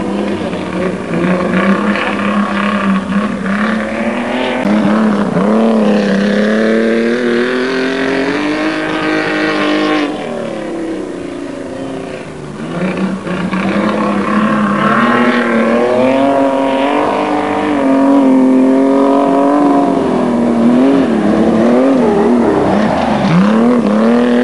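Several speedcar engines revving together as a pack of speedcars races on a dirt track, their pitches rising and falling against one another. The sound drops back for a couple of seconds around the middle, then comes back louder.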